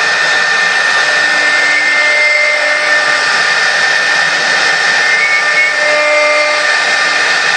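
Air-cooled CNC router spindle running at high speed, its end mill cutting into a wooden cylinder turned on a rotary axis: a steady high whine over the noise of the cut.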